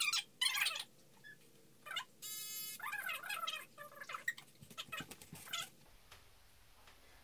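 Baby squealing and babbling in short high-pitched cries with gliding pitch, with one longer squeal about two seconds in. The sounds die away about six seconds in.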